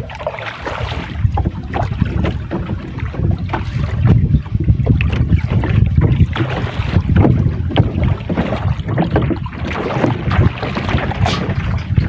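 Wind buffeting the microphone on a small fishing boat at sea, a heavy uneven rumble with water slapping and splashing against the hull.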